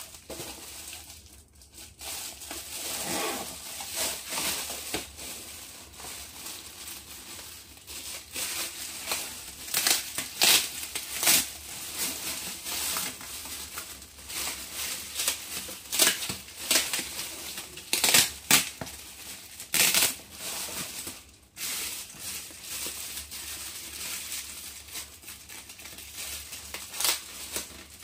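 Thin clear plastic bag crinkling and crackling as hands handle it and pull it open around a plastic blister tray, with many sharp crackles throughout.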